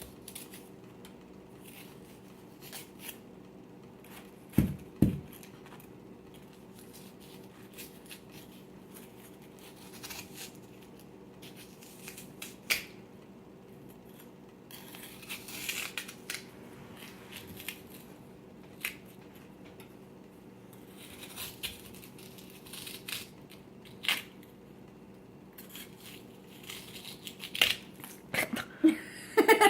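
A digging tool scratching and scraping at a damp, sandy dig-kit block in scattered short scrapes and clicks, with two louder knocks about five seconds in.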